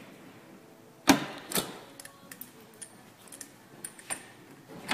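Wrench clinking on a golf cart's tie-rod jam nuts as they are loosened: a sharp metal knock about a second in, a lighter one just after, then a scatter of faint irregular ticks.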